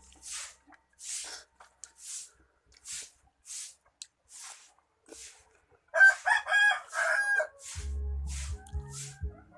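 Crisp, regular chewing crunches about every 0.6 s, the sound of eating crunchy unripe mango close to the microphone. About six seconds in, a rooster crows loudly for about a second and a half.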